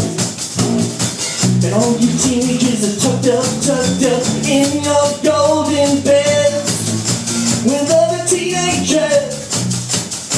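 Live rock band playing a song: electric guitars and bass with a steady beat, a shaker keeping time, and a melody line running over the top.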